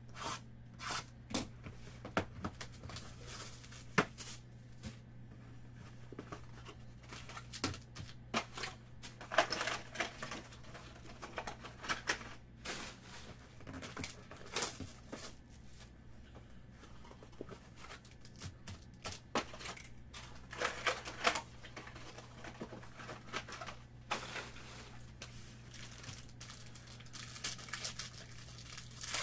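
Hands unsealing a Tier One baseball card box and handling its packs and cards: scattered clicks and taps of cardboard and plastic with bursts of rustling and crinkling. Near the end a foil pack wrapper is torn open and crinkled. A low steady hum runs underneath.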